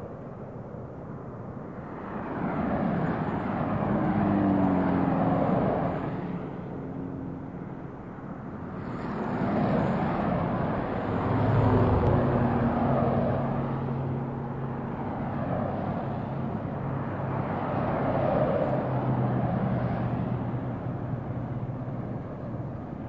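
Passing road traffic: vehicles go by one after another, the noise swelling and fading three times over a steady low engine hum.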